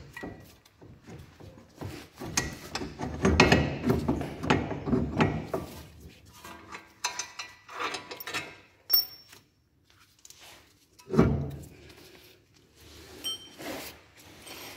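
Irregular metal clunks, clicks and rubbing as a driveshaft's CV joint is worked into the front wheel hub and suspension of a Mini Cooper R56. There is a busy run of knocks a few seconds in and one loud knock about eleven seconds in.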